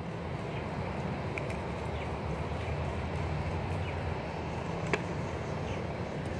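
Steady low background rumble, with a few faint ticks and one sharp click about five seconds in.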